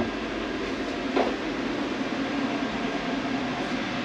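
Steady mechanical drone with hiss from running machinery, with one light knock about a second in.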